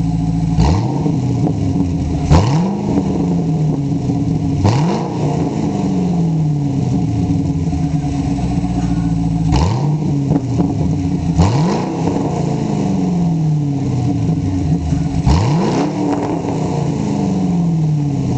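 Pontiac GTO's 6.0-litre V8 running with its mufflers removed, idling and revved sharply about six times, each rev falling back to idle over a second or two.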